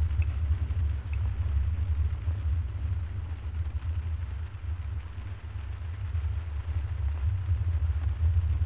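A steady, deep low rumble that wavers a little in strength, with a couple of faint high ticks near the start.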